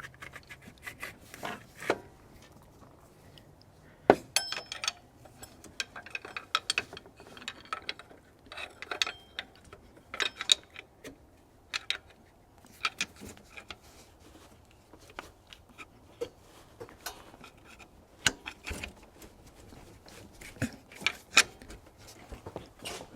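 Irregular metal clinks, knocks and scraping as a stuck alternator is wiggled and pried loose from its mounting bracket. The sharpest knocks come about four seconds in and again near eighteen seconds.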